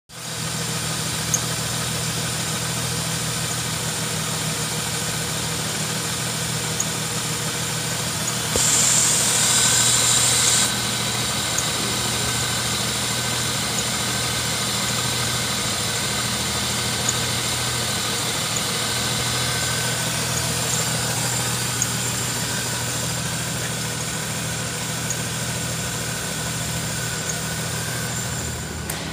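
Holden Statesman's 3.8-litre V6 idling steadily, with about 311,900 km on it. A hiss rises over the idle for about two seconds, around nine seconds in.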